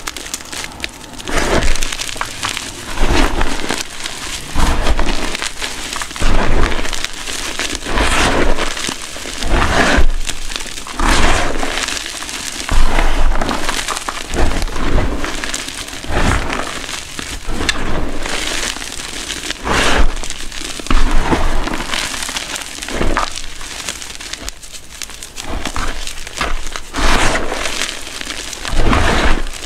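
Hands crushing and squeezing chunks of gym chalk in a bowl of chalk powder: crunching and crumbling in irregular bursts, about one every second or two.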